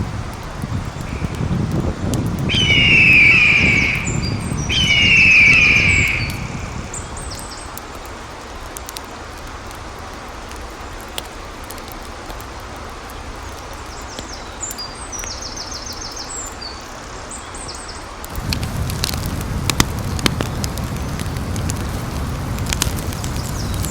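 Bird calling outdoors: two loud, clear calls a couple of seconds apart, later a run of fainter high chirps. Near the end a low rumble comes in with scattered sharp crackles.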